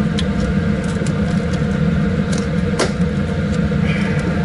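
Steady drone of a laminar flow cabinet's fan blowing filtered air over the work bench, with a few light clicks and taps of plastic culture containers being handled.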